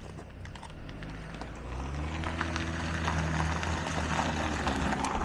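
A passing motor vehicle's engine: a low, steady hum that swells about two seconds in and fades near the end, over steady wind and road noise.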